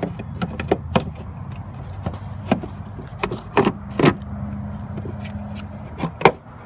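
Irregular plastic clicks and knocks as a car's rear lamp assembly is pushed and worked back into its mounting holes, the loudest knock near the end, over a steady low hum.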